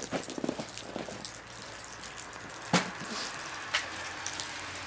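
Low rustling hiss with scattered light clicks and knocks, one sharper knock nearly three seconds in: someone moving about and handling gear.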